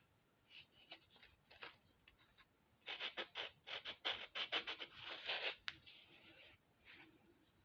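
Sanding block scrubbing a small metal clasp in short, faint strokes, rubbing dried patina off its raised surface to bring back the shine. A few scattered strokes come first, then a quick dense run of them about halfway through, then a few more.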